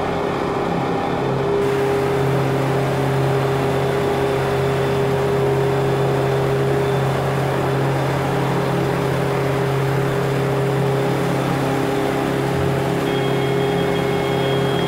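Passenger boat's engine running steadily underway, a constant low drone with a steady hum, under a rushing hiss of water and wind that picks up about a second and a half in.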